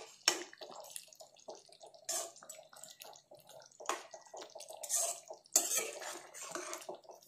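Metal spoon stirring thick quail gravy in a nonstick kadai: irregular wet stirring strokes with scrapes and light knocks of the spoon against the pan.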